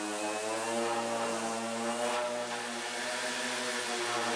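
Electric orbital sander running on a thin wooden guitar top, a steady motor whine whose pitch wavers slightly as the sander is pressed and moved over the board.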